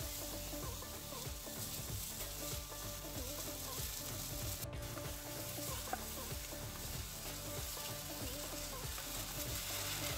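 Onion, spice and tomato sauce mixture sizzling as it fries in a non-stick pan, stirred and scraped with a wooden spatula.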